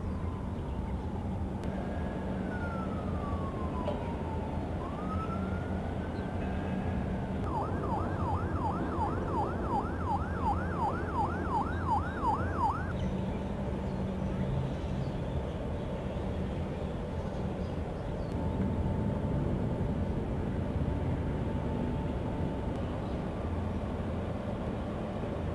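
Electronic siren sounding a slow rising and falling wail for the first several seconds, then switching to a fast yelp of about three sweeps a second for about five seconds before it stops. A low steady rumble runs underneath.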